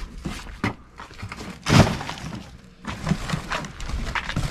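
Junk being thrown or dropped during a clear-out, with one loud crash about two seconds in among several smaller knocks and clatters.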